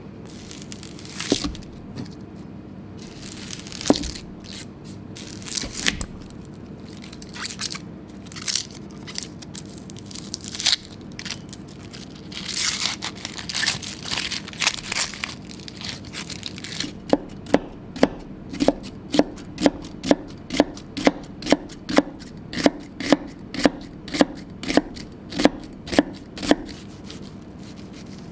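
A few scattered knocks, then papery dry onion skin crackling and tearing as an onion is peeled by hand. After that, a kitchen knife slices through the onion onto a cutting board in an even run of crisp cuts, about two a second.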